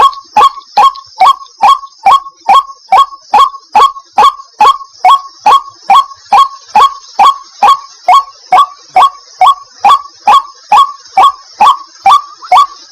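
White-breasted waterhen calling: a long, even run of short notes, each sliding down in pitch, a little over two a second, with a steady high hiss behind.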